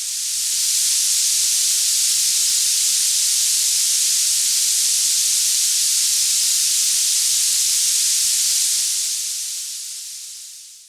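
A steady, high hiss with no rhythm or pitch, swelling in over the first second and fading away over the last two seconds.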